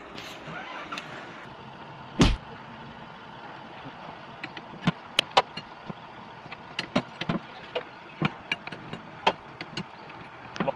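Ring spanner clicking against the flare nut of a car air-conditioning pipe as the nut is tightened onto the evaporator fitting. It gives a series of irregular sharp metallic clicks, and one loud knock comes about two seconds in.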